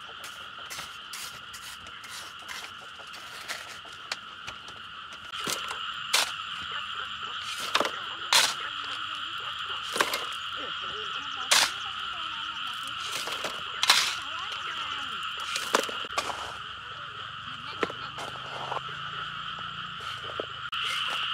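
Sharp knocks or strikes at irregular intervals, one every second or two, louder from about five seconds in. They sound over a steady high-pitched chorus in two bands.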